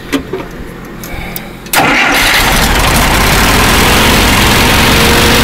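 A few light clicks at the controls, then the Allis-Chalmers One-Seventy's four-cylinder gasoline engine catches abruptly about two seconds in and runs on steadily through a replacement Camaro exhaust. The owner hears it as firing on only three cylinders, a miss on cylinder 2 or 3, with fuel starvation suspected.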